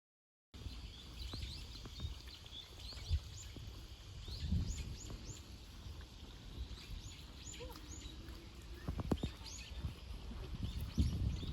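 Small birds chirping over and over in short high calls, over a low outdoor rumble with a few scattered knocks; the sound cuts in about half a second in.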